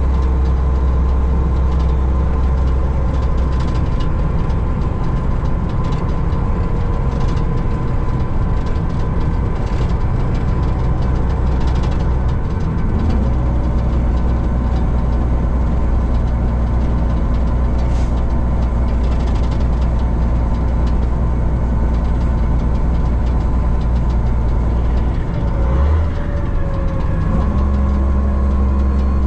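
Truck's diesel engine running steadily as the truck drives down the road, heard from inside the cab. The engine note changes about halfway through and again near the end.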